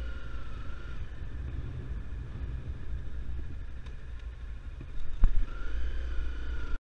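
Honda CRF250L single-cylinder engine running at low speed, with wind rumbling on the microphone. A sharp knock about five seconds in as the bike rolls off the pavement onto a dirt trail.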